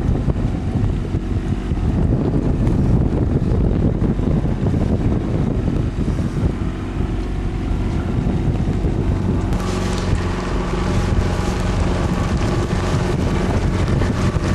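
Boat motor running steadily with wind buffeting the microphone. About ten seconds in the sound grows brighter and a higher steady whine joins.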